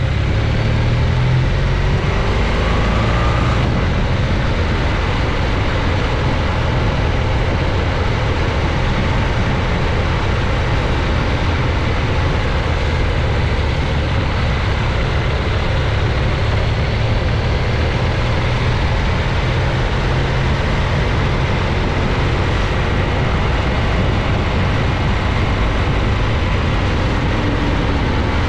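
Heavy wind noise over the camera microphone of a moving BMW R1200GS Adventure motorcycle, with the steady drone of its boxer-twin engine underneath.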